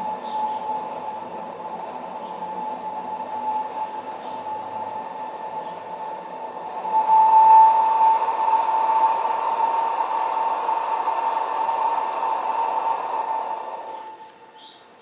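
Butane gas hissing through a homemade lantern's valve and burner, with a thin steady whistle in the hiss. It grows louder about halfway through and cuts off near the end.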